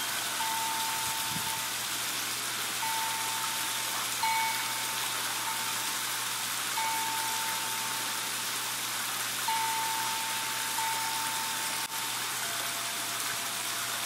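Water from a small rock waterfall splashing steadily into a garden pond. A high held tone comes and goes several times over it.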